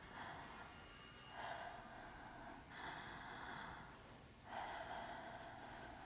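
A woman's faint, strained breathing: four long, rasping breaths in a row, each about a second.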